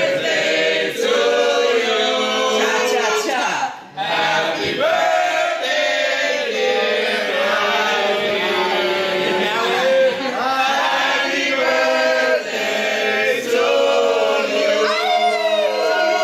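A group of people singing loudly together like a party chant, with a brief break about four seconds in.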